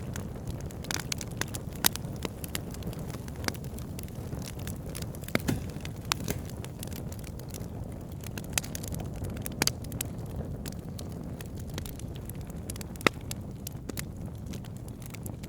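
Campfire burning: a steady low rush of flames with irregular sharp crackles and pops throughout, a few of them louder.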